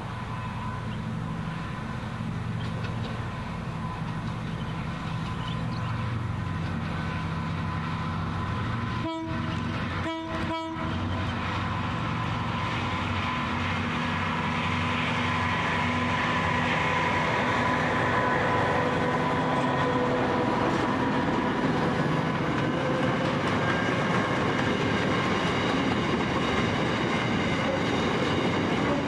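Diesel freight locomotives running with a steady low drone, then a long rake of loaded container wagons rolling past, the wheel and wagon noise growing louder through the second half. The sound briefly cuts out two or three times about a third of the way in.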